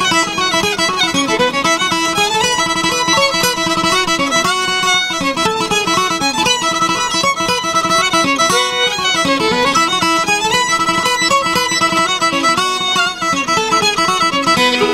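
Fiddle and acoustic guitar playing an instrumental bluegrass passage together, the fiddle carrying the melody over the guitar's accompaniment.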